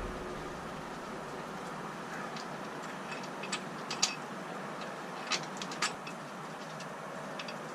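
A few light metallic clicks and taps as a bolt and hand tools are worked on a Jeep's fender bracket, scattered over a steady background hiss.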